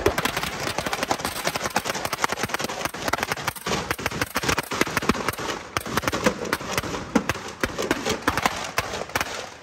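Firecrackers going off in a dense, rapid crackle, many pops and bangs a second and some louder than others, thinning out near the end.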